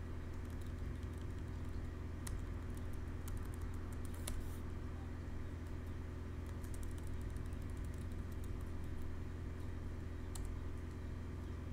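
Computer keyboard typing: scattered key clicks in short runs, with pauses between, over a steady low hum.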